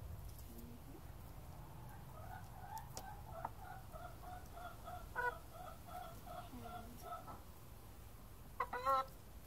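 Hen clucking in a steady run of short notes, about three a second, for several seconds, then a louder, sharper squawk near the end.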